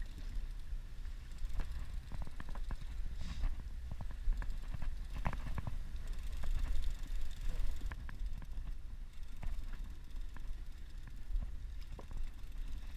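Steady low rumble of the boat at sea, with scattered sharp clicks and knocks from a conventional fishing reel being cranked. The loudest knocks come about four and five seconds in.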